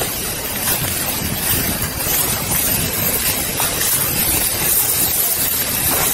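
Leaves and branches brushing and rubbing against a body-worn camera as its wearer pushes through dense undergrowth, a continuous rustling noise.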